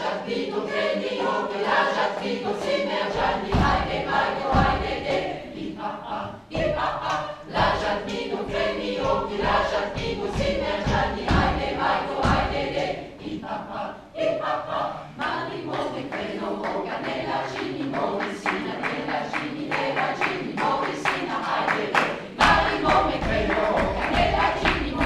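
Amateur mixed choir singing, with many sharp clicks or taps over the voices that grow denser in the second half.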